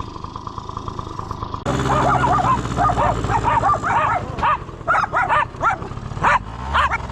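Miniature dachshunds yipping and whining in a quick run of short, high calls, starting about a second and a half in, over a steady low hum.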